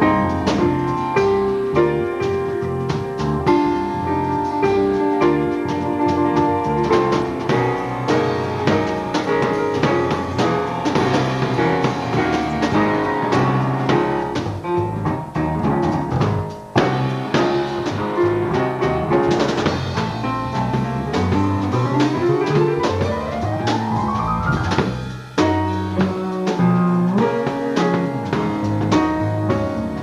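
Small jazz ensemble playing: acoustic piano over a busy drum kit, with electric bass. A long, slow rise in pitch runs for several seconds about two-thirds of the way through.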